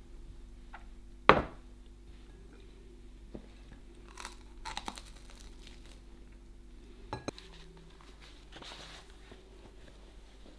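A ceramic mug set down on a table with one sharp knock about a second in, the loudest sound; then soft crunching and chewing of toast, with a smaller knock later on.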